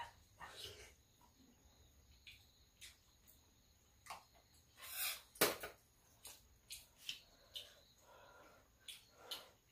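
Eating noodle soup and porridge: scattered slurps and chewing with light clicks of metal chopsticks and a spoon against bowls, the loudest slurp about five seconds in.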